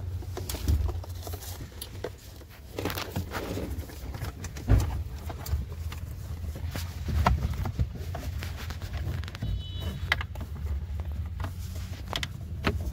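Scattered clicks and knocks of hands working among the plastic dashboard trim and wiring harness under a car's dash, with one sharper knock about halfway, over a steady low rumble.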